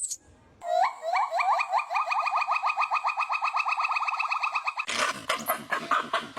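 An animal's fast trill of high chirps, about nine a second, each note rising in pitch, lasting about four seconds. Near the end a harsher, noisier chattering takes over.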